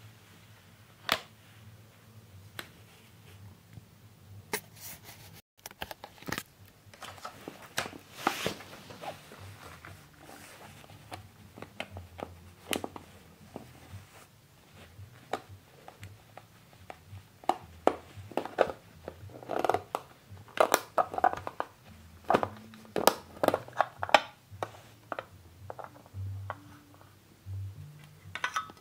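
Clear plastic cases with bubble-wrap packing being handled: irregular clicks, taps and crinkles, coming thicker and louder in the second half.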